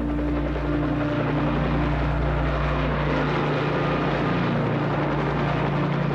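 Boeing Chinook tandem-rotor helicopter running, a steady dense rotor and engine noise with a low hum.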